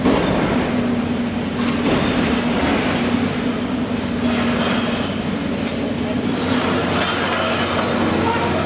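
Tracked demolition excavators working rubble: a steady diesel engine hum, with high metallic squeals and scraping and a constant clatter of broken concrete and steel.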